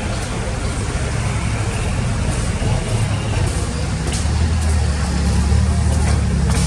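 Heavy diesel engine of earthmoving machinery running steadily, growing louder and deeper about four and a half seconds in as it takes on load, with a few faint clicks and knocks.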